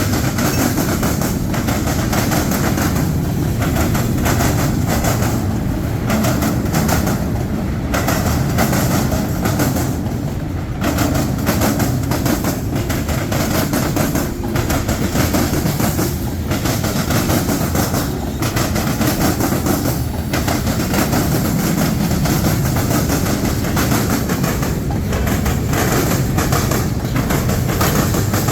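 Freight train cars rolling past at steady speed: a continuous heavy rumble with wheels clattering over the rail joints.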